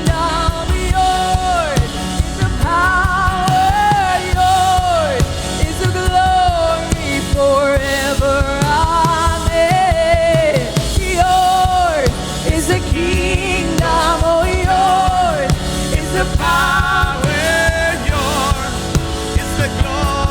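Christian worship song: a singer holding long, wavering notes over a full band with a steady drum beat.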